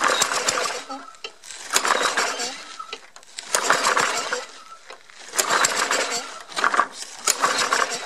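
Briggs & Stratton lawnmower engine running on a cold start after having been seized. Its sound swells and fades about every two seconds, with sharp clicks in each louder stretch.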